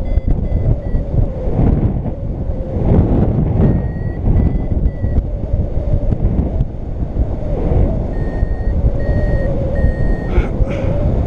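Paraglider flight variometer beeping in short runs of high-pitched beeps, a few near the start, again about four seconds in and again near the end; the beeping signals the glider climbing in rising air. Loud wind buffets the microphone throughout.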